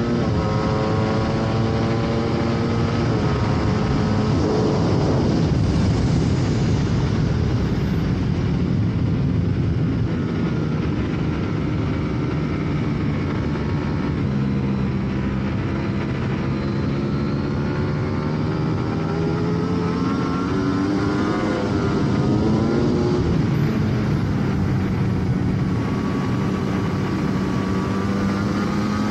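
Sportbike engine at speed on a race track, heard onboard, its pitch rising and falling again and again as the rider works the throttle, over a steady rush of wind noise.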